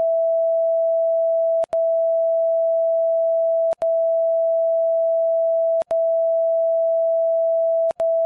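Censor bleep covering speech: a loud, steady pure tone of about 700 Hz, broken by a split-second gap about every two seconds.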